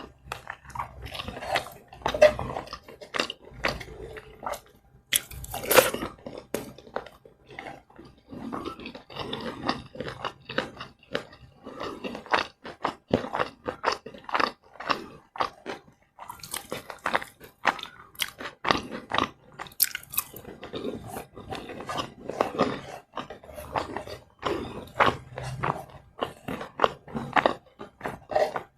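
Close-miked chewing and biting through a meal of fried rice, flour-battered fried liver and coleslaw: a dense, irregular run of wet chews and crisp crunches.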